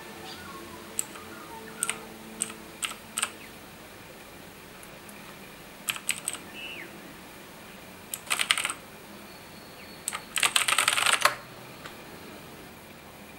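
Razer BlackWidow Chroma mechanical keyboard being typed on: a handful of separate keystrokes early on, a few more around the middle, and then a quick flurry of keys about ten seconds in.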